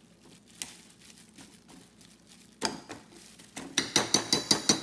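Spoon working through marinated chicken in a stainless steel bowl, with soft scattered clicks and a single knock a little past halfway. Near the end comes a quick run of about seven ringing metallic taps, the spoon knocked against the bowl's rim.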